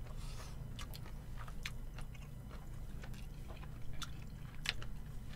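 Quiet chewing of stir-fried food (mala xiangguo and fried rice), with a dozen or so scattered small clicks over a low steady hum.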